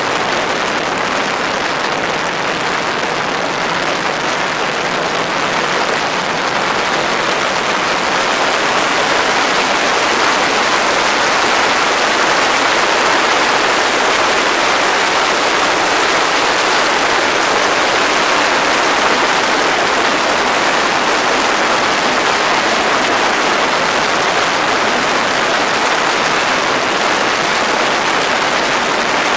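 X'Air microlight's engine and propeller run up on the ground, a loud, steady rush of propeller blast over the microphone that swells slightly after several seconds and then holds. This is a static RPM check after a propeller pitch adjustment, in which the engine makes only about 5900 rpm: not enough power.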